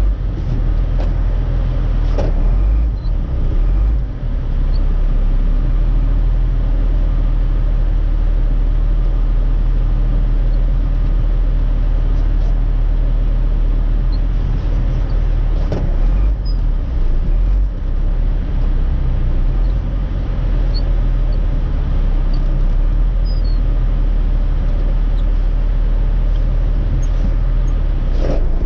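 Mercedes-Benz Unimog 1250's six-cylinder diesel engine running steadily under load while its front snow plow pushes snow along the road, with a few brief knocks.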